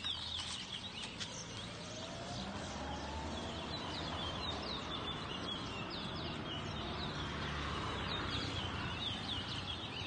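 Caged towa towa seed finches singing: quick runs of high, down-slurred chirps that repeat throughout, over a low steady background din.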